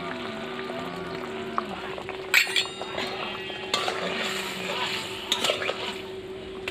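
Flat metal spatula knocking and scraping against a metal kadai while stirring spice paste into a simmering curry. A sharp ringing clink about two and a half seconds in is the loudest, with further knocks and scrapes later.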